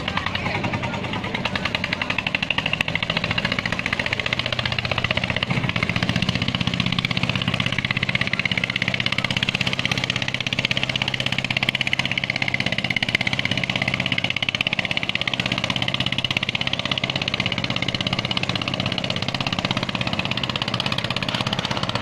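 Fishing boat engine running steadily with an even, rapid pulsing beat.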